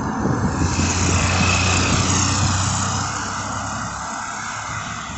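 A car passing close by on the highway, its tyre and engine noise loudest at first and then fading away over a few seconds.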